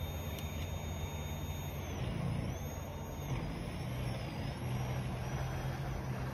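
WORX 40V cordless snowblower's electric motor running with a steady hum and a high whine. The whine dips in pitch twice, about two and three seconds in, and then recovers.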